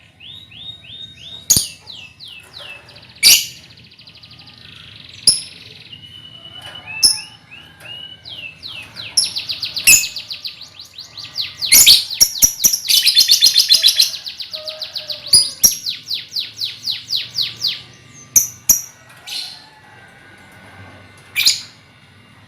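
A colony of lovebirds calling together: rapid runs of short falling chirps, with sharp, loud single shrieks cutting in between, busiest in the middle.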